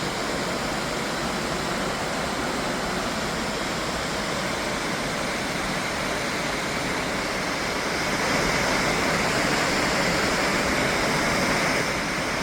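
Steady rush of water falling at Middle McCloud Falls, growing a little louder about eight seconds in.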